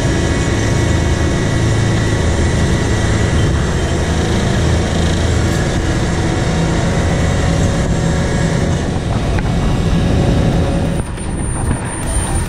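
Caterpillar AP655F asphalt paver running close by: a steady, loud diesel engine with the noise of its machinery working as it lays asphalt. About eleven seconds in, the sound drops suddenly and changes.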